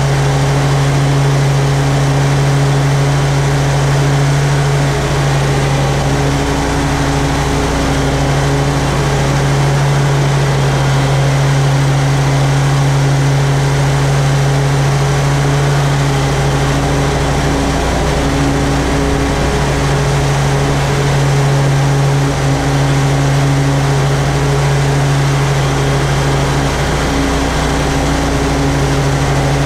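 Toro Z-Master 4000 zero-turn mower's engine running at a steady, even speed while mowing grass, a continuous loud hum with no change in pitch.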